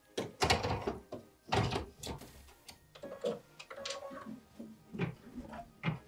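Plastic embroidery hoop being handled and clicked onto the embroidery arm of a Baby Lock Meridian embroidery machine: a series of knocks and clatter, heaviest in the first two seconds.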